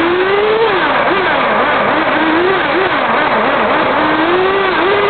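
RC model car's motor, heard from a camera riding on the car, rising and falling in pitch several times as the throttle is worked, over a steady rush of road and wind noise.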